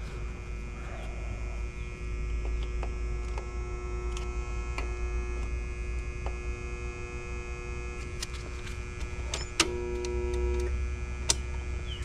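Steady electrical hum, with scattered light clicks and taps and a short buzzy tone about ten seconds in.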